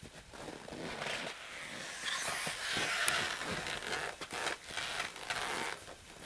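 Rustling and scraping of fur and winter clothing as a dead wolf is hauled off a wooden sled and held upright, loudest about two to four seconds in.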